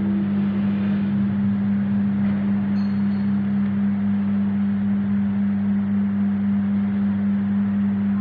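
Steady low electrical hum at an even level, with a faint short high beep about three seconds in.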